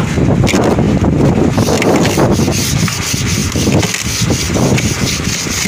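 Old wooden deck planking of a boat being pried and chiselled loose with a pry bar and a hammer and chisel: wood scraping and rubbing, with scattered knocks.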